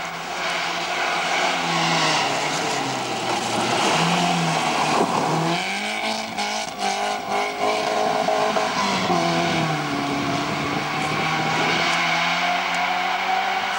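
Rally car engine at high revs as the car drives a gravel stage, its pitch climbing and dropping several times with gear changes and lifts off the throttle. A spell of sharp crackles comes about six to seven seconds in.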